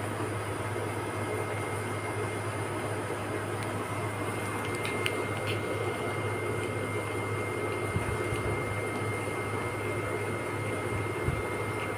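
A steady low machine hum with faint high whining tones over it, and a couple of soft low thumps in the second half.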